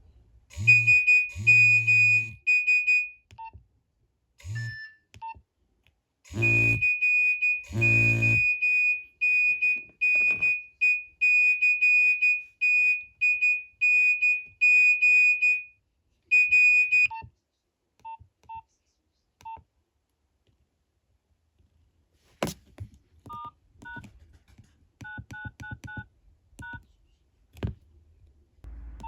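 Nokia 2651 flip phone sounding an alert: a single high-pitched beep repeated in a fast on-off pattern for about ten seconds. A low buzzing comes in short bursts over the first eight seconds, from the vibrating alert. Later comes a sharp click, then short keypad beeps and key clicks as buttons are pressed.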